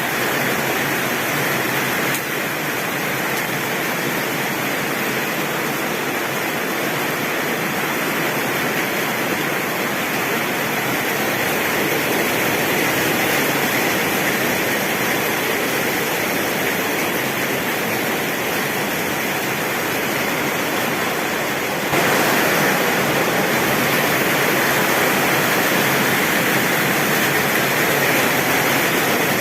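Heavy rain pouring steadily on a tin roof, a dense even hiss with no thunder. It turns abruptly a little louder about three-quarters of the way through.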